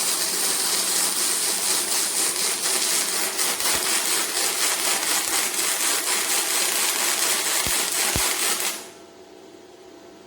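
Welding arc from a MIGVAN M140 inverter welder, crackling steadily for about nine seconds, then cut off suddenly. A much quieter steady hum is left after it stops.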